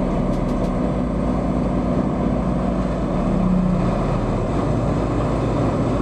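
Morbark 50/48X heavy-duty wood chipper running steadily and loudly, with a strong low hum that eases off about four seconds in.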